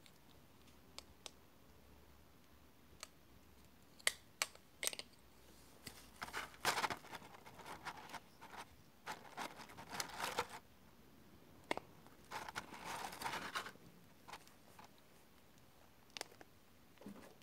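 Hard plastic being handled: a vinyl Funko Pop figure and its clear plastic base and packaging insert give scattered sharp clicks and taps, and three stretches of scratchy rubbing and crinkling of a second or two each.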